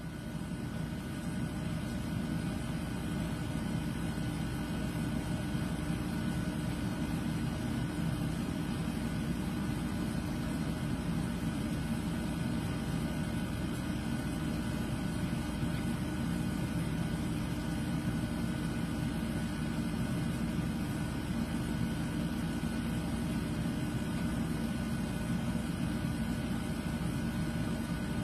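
A steady low mechanical hum with several constant tones, like a motor running, unchanging throughout.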